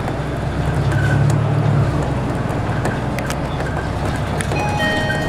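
City bus engine and running noise heard from inside the bus as it drives, the engine hum swelling about a second in. Near the end an electronic chime of several tones begins.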